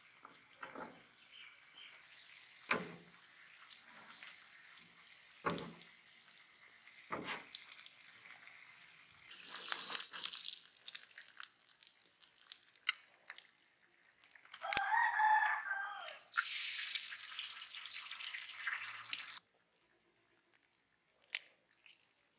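Cooking at a flat steel griddle: a few short knocks, then stretches of hissing, scraping noise as a spatula works the plate. About fifteen seconds in, a rooster crows once.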